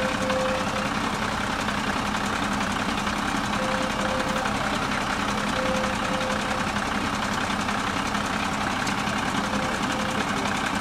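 Vehicle engine running steadily, with a short pair of beeps sounding four times over it.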